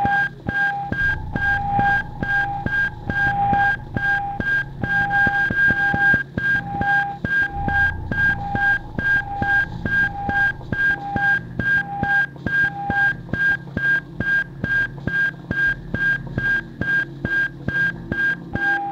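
Lo-fi electronic loop from a 1980s Casio VL-Tone running through loopers. Short high beeps repeat at about three a second over a low hum, and a lower beep in a slower pattern drops out about two-thirds of the way through.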